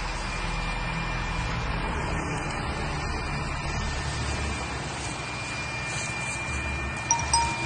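A steady low rumble with a hiss over it, no single loud blast. Near the end come two short, high chime-like beeps.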